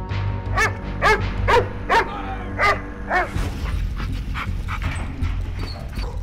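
A dog barking, six barks in quick succession that stop about three seconds in, over a steady low rumble.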